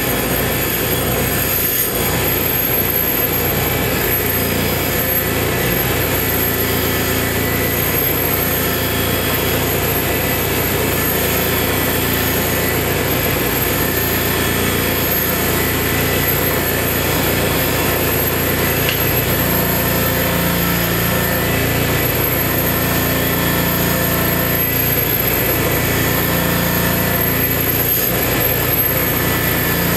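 A belt-driven shop arbor running steadily, with a steel head-bolt tube held against it to strip the tube's epoxy coating.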